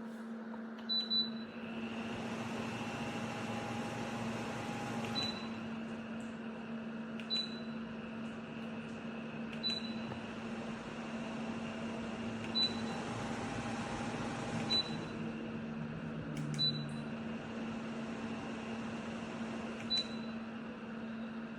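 Dreo tower fan running with a steady hum and airflow hiss, with about eight short high beeps from its controls, two to three seconds apart, as settings are changed.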